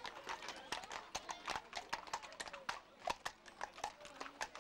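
Irregular sharp clicks and clacks, several a second, with faint voices behind.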